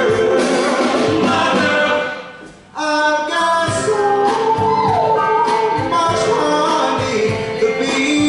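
Live Motown-style band and vocal group performing: a lead singer over backing vocal harmonies and the band. The music stops for a short break about two seconds in, then comes back in at full level.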